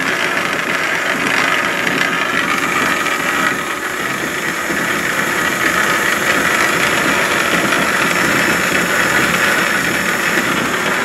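Antique belt-driven lathe running under power with no load: its old electric motor, V-belt on the stepped cone pulleys and spindle turning with a steady mechanical whir. It runs smooth and quiet.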